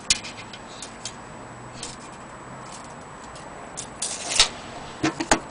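Irregular light clicks and knocks at no steady rate: a couple near the start, a louder cluster about four seconds in, then three sharp knocks close together around five seconds.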